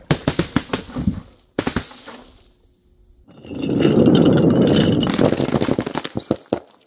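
Small hard balls dropping onto a board in a quick run of sharp knocks and bounces. After a short pause, a row of glass beer bottles rolls down a wooden chute in a long clatter, with glass ringing and shattering, and a few last knocks near the end.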